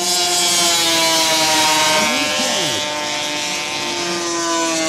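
Vintage two-stroke racing snowmobiles running hard at high revs as a pack of sleds goes by, their engine note falling slowly in pitch, with a hiss of track and snow spray.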